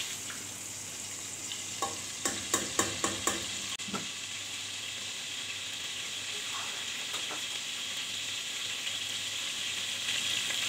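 Green cardamom pods frying in hot ghee in a pan: a steady sizzle, with a run of sharp clicks and pops about two to four seconds in. The sizzle grows louder near the end.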